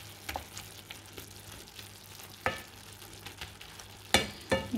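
A utensil stirring taro stolons and shrimp in a metal pan, scraping and knocking against the pan, over a faint sizzle of the dish cooking on low heat. The knocks are sharpest about two and a half seconds in and in a cluster near the end.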